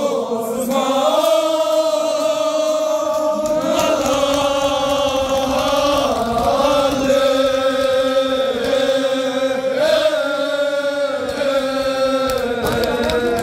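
Men's voices chanting a Kashmiri marsiya, a Shia lament, together in a slow melody of long held notes that slide from one pitch to the next.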